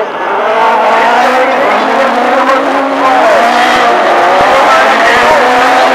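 Several autocross buggy engines racing together on dirt, revving hard, their pitches rising and falling as they accelerate and back off through a corner.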